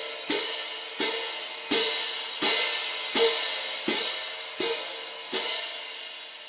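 Cymbals struck in a steady rhythm, eight metallic crashes about 0.7 seconds apart. Each rings bright and fades away before the next hit.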